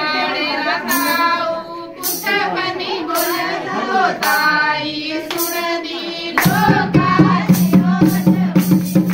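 Group of voices singing a folk song for giddha dancing, with sharp beats about once a second. About two-thirds of the way through a steady low tone joins in under the singing.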